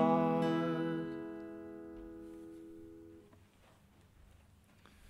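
Acoustic guitar's last chord ringing out and slowly fading, then cut off about three seconds in, as at the close of a song; faint room sound after.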